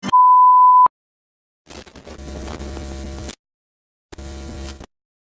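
TV test-pattern tone: a steady 1 kHz beep lasting nearly a second. It is followed by two stretches of electrical buzz and static with a low hum, a longer one of about a second and a half and a shorter one near the end.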